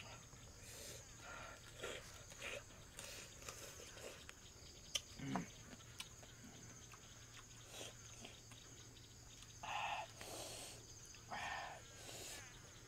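Chewing and lip-smacking as small whole crabs and a vegetable salad are eaten by hand, in short irregular bursts, loudest near the end. A steady high insect chorus runs underneath.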